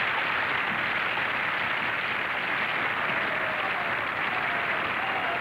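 Audience applause, many hands clapping in a steady, even clatter, on a cartoon soundtrack as a mouse takes a bow. Faint wavering tones come in over it about halfway through.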